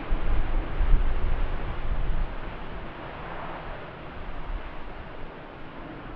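Jet aircraft noise: a steady roar with a heavy low rumble that swells sharply at the start, peaks about a second in, and fades over the next few seconds.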